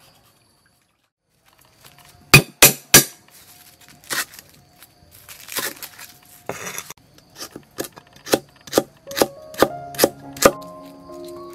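Cleaver chopping lemongrass and a ginger-like root on a wooden chopping board: a few heavy strokes with some scraping, then a steady run of about two to three chops a second. Background music comes in near the end.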